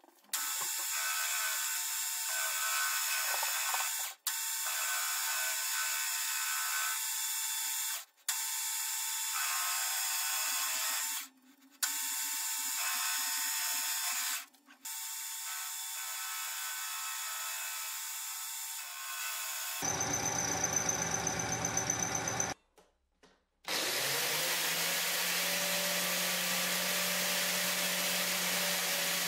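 Metal lathe turning a rusty metal ring, a steady cutting hiss broken by several brief cuts. About 20 s in the sound changes, and over the last five seconds an angle grinder with a flap disc runs steadily against the ring's edge.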